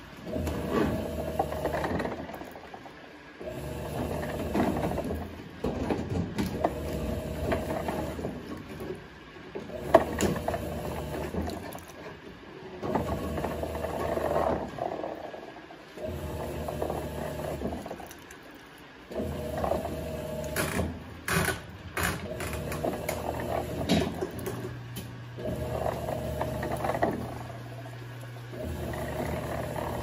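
Electrolux Turbo Economia 6 kg top-loading washing machine agitating a load: the motor hums and the water sloshes in stretches of about two to three seconds, stopping briefly between strokes as the wash action reverses, with an occasional click.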